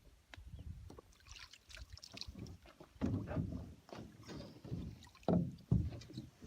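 A canoe being paddled: irregular paddle splashes and knocks against the hull, loudest about three seconds in and again a little after five seconds.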